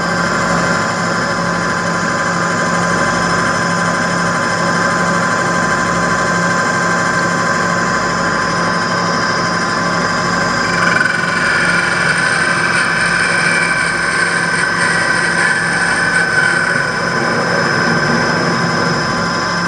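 Small lathe running at full speed, a steady motor whine, while a cutting tool faces off the end of a cue ferrule. About halfway through a brighter, higher scraping tone joins the whine.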